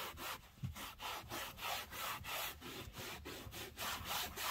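Microfiber cloth rubbed quickly back and forth over a car's dashboard, a rhythmic swishing of about three strokes a second.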